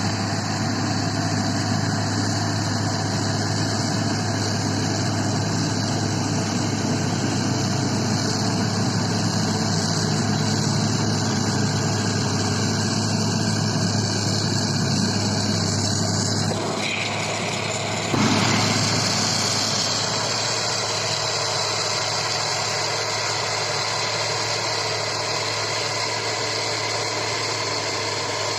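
John Deere combine harvester's engine running steadily with a constant low hum; the sound shifts abruptly about two-thirds of the way through, with a brief rise in loudness, then carries on steadily.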